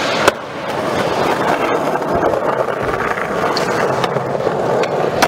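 Skateboard wheels rolling on a smooth concrete floor, with one sharp clack about a third of a second in as the board lands a kickflip; the rolling noise then picks up again, with a few lighter clicks of the board later on.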